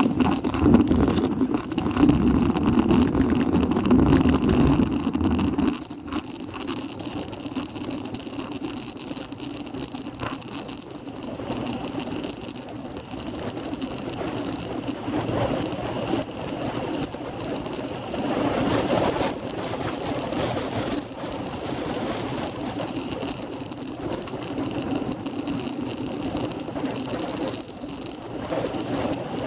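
Wind rushing over a bike-mounted camera's microphone and tyres humming on asphalt during a freewheeling descent. Heavy wind buffeting for the first several seconds eases to a lighter, steadier rush.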